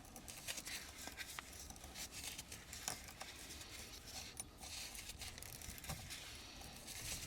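Faint handling noise from small wires being straightened and twisted by hand: light scattered clicks and rustles.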